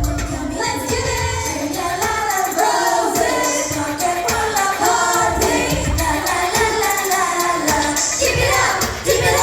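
K-pop girl group singing a pop song over its backing track, with a steady bass beat, played through a hall's sound system.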